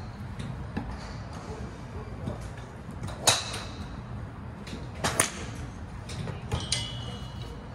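Sharp clicks of golf clubs striking balls, three in all, the loudest about three seconds in. The last is followed by a brief ringing tone.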